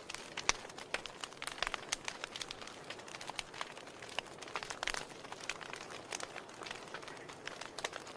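Wood fire in a fireplace crackling: irregular sharp pops and snaps, several a second, over a soft steady hiss.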